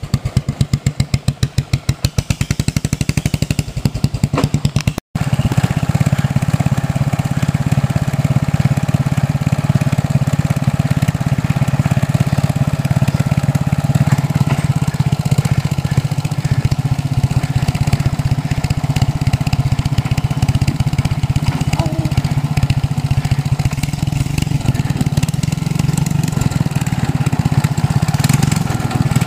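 Homebuilt tractor's engine with a single exhaust, heard close to the pipe: for the first five seconds it idles with distinct, even exhaust pulses; after a brief dropout it runs steadily as the tractor drives about.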